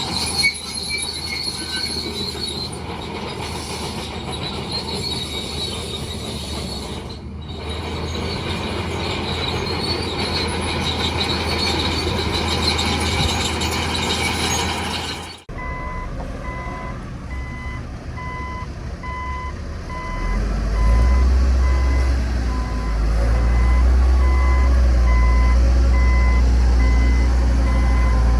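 Heavy earthmoving machinery: steel crawler tracks squealing and grinding over a steady engine noise. After a sudden cut about halfway through, a dump truck's reversing alarm beeps at a steady rate, and its diesel engine rumbles loudly from about two-thirds of the way in.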